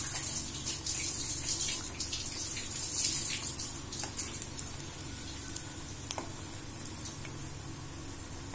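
Methi roll pieces deep-frying in hot oil in a kadai: a steady sizzle with scattered crackles, louder for the first few seconds and then settling to a softer, even sizzle.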